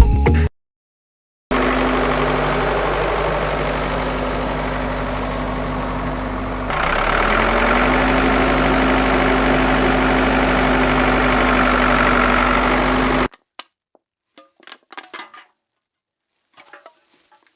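A small motor running steadily with a constant hum, rising a little in pitch and getting louder about seven seconds in, then cutting off suddenly; a few faint clicks follow.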